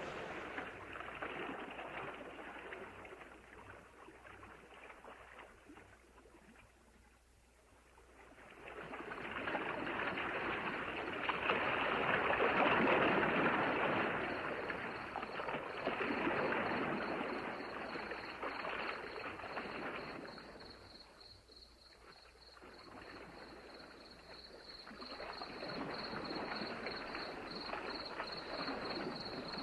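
Ocean surf: waves surging in and washing back in long swells, loudest around the middle and again near the end. From about a third of the way in, crickets trill at a high, steady pitch, growing louder.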